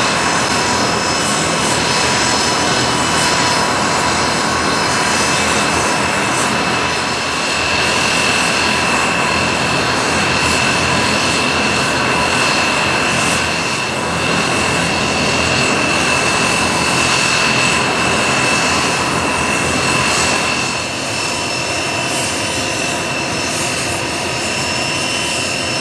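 Aircraft engines running steadily: a constant high whine over a broad rush, easing off a little about three-quarters of the way through.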